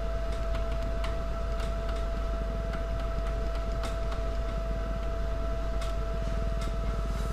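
Steady electrical hum with a thin constant whine in the background of the recording, broken by a few faint clicks.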